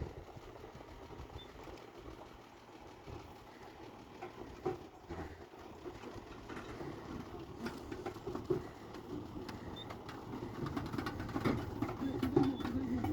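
Excavator working: a low engine rumble with irregular knocks and clatter, getting louder near the end.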